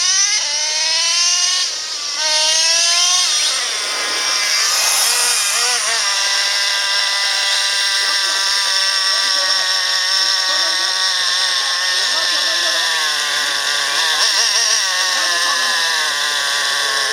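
Radio-controlled off-road car's motor running hard and whining. Its pitch climbs in the first few seconds, dips and climbs again, then holds a steady high whine.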